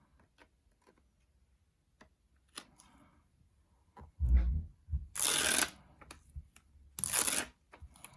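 Hands handling the plastic parts and packaging of a screen protector kit: small clicks and a light rustle, a soft thump about four seconds in, then two brief rustling swishes.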